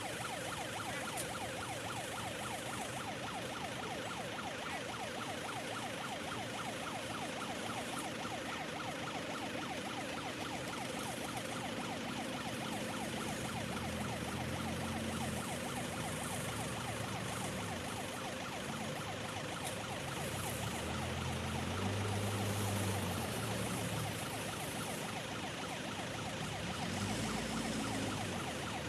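Pre-blast warning siren sounding continuously across the earthwork site, the signal that a blast is imminent. An engine runs low underneath from about halfway.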